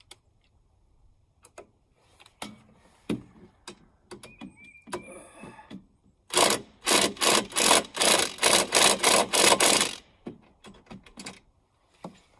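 Metal clicking and scraping from a multi-tool's pliers working a nut on a bolt, with scattered clicks and a short squeak at first, then a loud run of rapid clicks lasting about four seconds.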